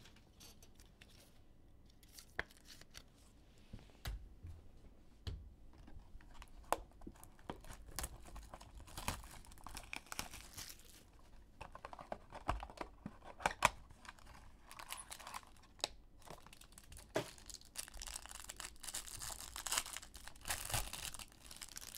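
A Panini box of football trading cards being handled and opened, then the plastic wrapping on a pack of cards being torn and crinkled, with scattered cardboard clicks and taps. The crinkling comes in two spells, around the middle and near the end.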